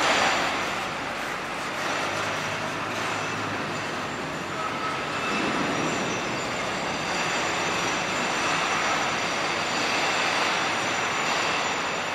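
A train running, a steady even noise with no breaks.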